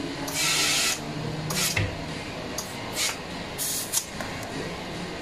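Short bursts of compressed air hissing from a pneumatic tool at a car's wheel: one of over half a second near the start, then four briefer blasts. A dull knock sounds about two seconds in.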